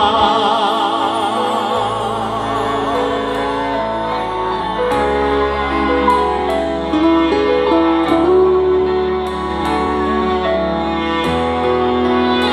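Instrumental break of a slow Korean pop ballad (trot) played over a PA with backing band or track. It opens with the singer's last held note wavering with vibrato and dying away, then a gliding lead melody carries on over bass and light cymbal ticks.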